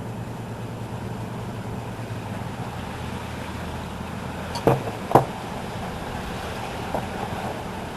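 Two sharp clicks about half a second apart near the middle, and a fainter tap later, from small parts of a disassembled airsoft electric pistol being handled and set down. A steady low hum runs underneath.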